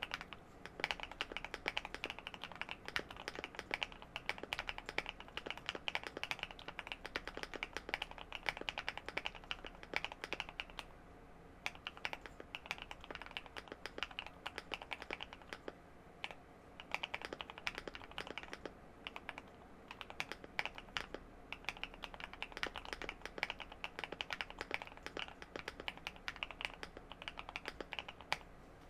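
Typing on a mechanical keyboard with linear Gateron Silver Smoothie switches, a polycarbonate plate, full foams and Osume Dusk keycaps: fast runs of clacking keystrokes broken by short pauses, a smooth, deep sound.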